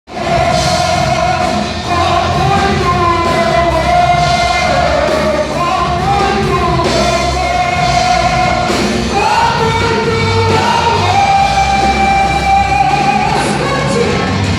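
Loud gospel worship music with singing over a band, the voices holding long sung notes against a steady low beat, echoing in a large hall.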